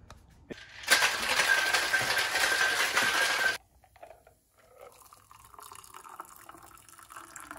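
A loud rushing noise with a steady whistle-like tone starts about a second in and cuts off abruptly after about two and a half seconds. Then comes a faint trickle of a margarita poured from a metal cocktail shaker through its strainer into a glass over ice.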